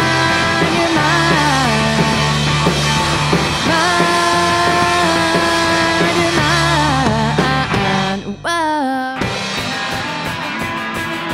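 Rock band playing an instrumental passage: a melody line with bends and slides over steady bass and drums. About eight seconds in, the bass and drums stop, leaving one wavering, falling note, then guitar strumming carries on with lighter backing.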